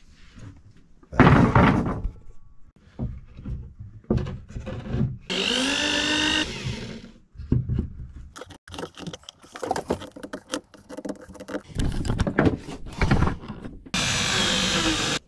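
Woodworking sounds: a loud burst about a second in, then a run of knocks and thumps of timber being handled and tapped. Twice a handheld power tool runs briefly, spinning up a little after five seconds and again near the end, where it cuts off abruptly.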